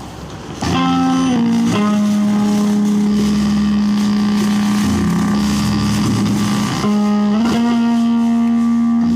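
Music: a loud guitar playing long held notes, sliding up in pitch about a second in and again about seven seconds in.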